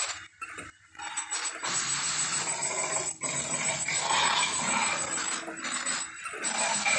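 A lion growling in rough, noisy stretches, broken by short pauses about a second in and again just after three seconds.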